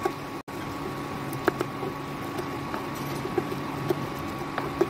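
A spoon mixing egg bhurji on a tava griddle, with scattered sharp taps and scrapes as it strikes the griddle, over a steady low hiss.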